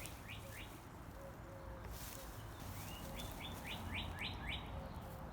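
Songbird chirping: a few quick chirps at the start, then a faster run of about seven short chirps about three seconds in, over a faint low outdoor background.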